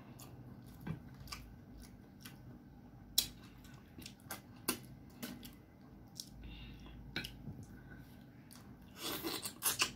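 Close-miked eating sounds of a person chewing: scattered sharp lip smacks and mouth clicks, a few at a time with pauses between, and a denser run of smacks near the end.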